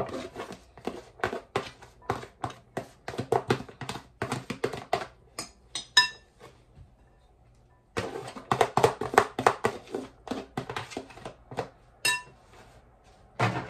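Cooked fried rice being shaken and knocked out of a plastic food container into a glass mixing bowl: runs of quick tapping thunks, with brief ringing glass clinks about six seconds in and again near the end.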